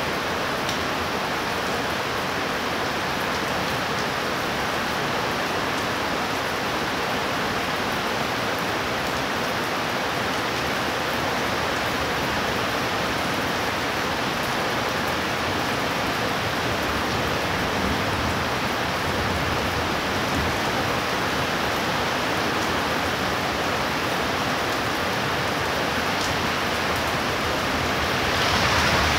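Steady rain pouring down, an even hiss, growing a little louder just before the end.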